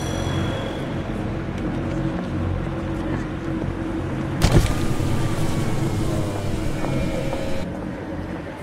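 A car engine running with traffic noise, a steady low rumble. A single sharp knock comes about four and a half seconds in.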